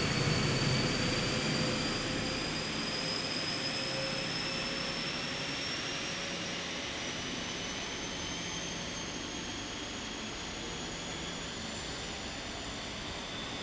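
Class 43 HST power car 43089's diesel engine working hard as the train pulls away, its low rumble fading slowly as it draws off. Over it runs a high whine that rises steadily in pitch.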